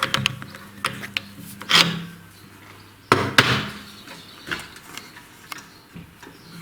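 A string of separate knocks and clanks, the loudest just under two seconds in and again about three seconds in, from tools and parts being handled at a machine-shop bench. A low steady hum dies away a little after three seconds.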